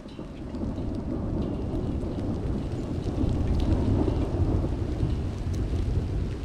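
A deep, continuous rumble that swells about a second in and then holds, with faint light ticks above it.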